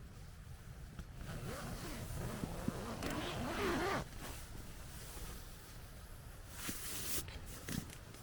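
A zip drawn in a pull of about a second, over a steady low rumble.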